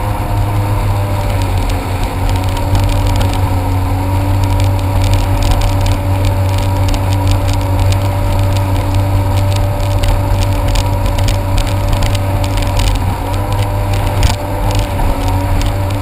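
Jet ski engine running at a steady cruise, its pitch easing briefly about a second and a half in and again near the end, over a heavy low rumble.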